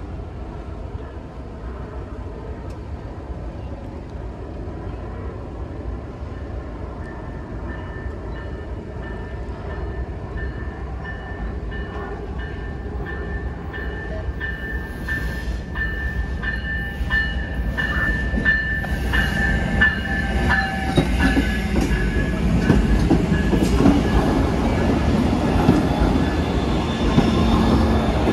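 Amtrak passenger train led by Siemens Charger diesel locomotives arriving at a station, growing steadily louder as it approaches. A high, steady squeal runs through the middle stretch. The locomotives' low rumble is loudest near the end as they pull alongside.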